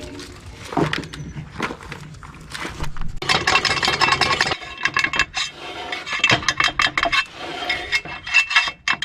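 Hand tools and metal hardware clinking, rattling and scraping as bolts are worked loose on a Chevy P30 chassis' transmission-mounted parking brake. There is a longer scrape or rattle a few seconds in, then quick runs of clicks toward the end.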